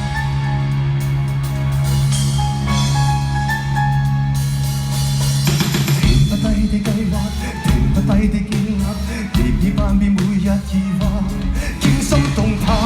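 Live band music at a song's opening: held low notes for about five seconds, then drums and the full band come in.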